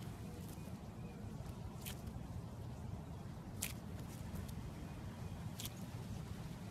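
Clear jelly slime squeezed in a hand, giving a sharp wet click three times, about two seconds apart, over a low steady rumble.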